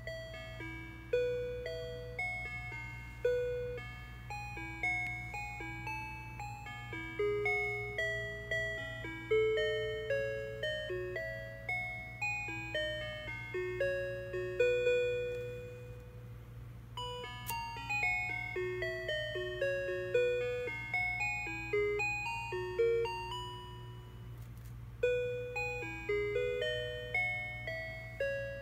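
Mr. Christmas light-and-sound musical gift box playing an electronic Christmas melody of bell-like notes through its small speaker, with a steady low hum beneath. About sixteen seconds in the melody breaks off briefly, a click sounds, and the tune carries on.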